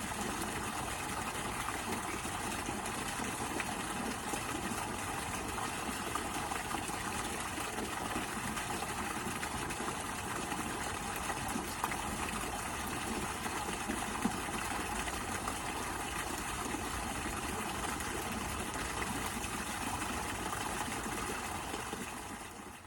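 Waterfall: a steady, unbroken rush of falling water that fades out near the end.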